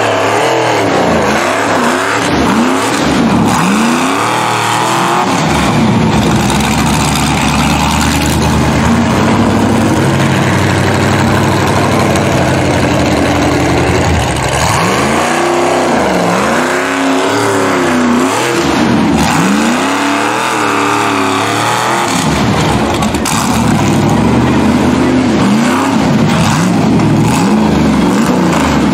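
Rock bouncer buggy's engine revving hard as it climbs a rocky hill, the throttle blipped up and down over and over, with a longer steady high-rev stretch in the middle.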